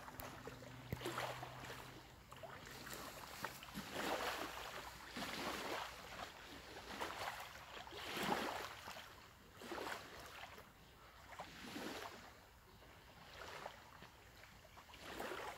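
Faint background sound of lapping water, a soft rushing that swells and fades in irregular surges every second or two.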